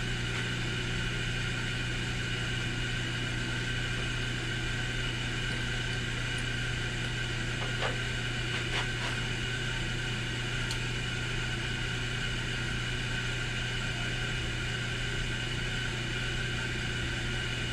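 Machine tool's motor and spindle running steadily with a constant hum and a higher whine while it takes a cut into a zinc die-cast carburetor float bowl. There are a couple of faint ticks near the middle.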